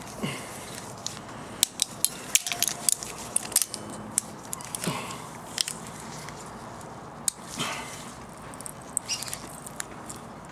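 Thread tap held in locking pliers being turned by hand in an air injection port of a 2ZZ-GE aluminium cylinder head: irregular sharp metal clicks, with a few short squeaky scrapes as the tap cuts.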